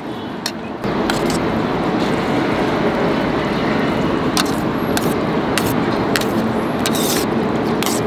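A metal spoon stirring yogurt and greens in a stainless steel bowl, with short sharp clinks of spoon against steel. Under it a steady rushing noise comes in suddenly about a second in and is the loudest sound.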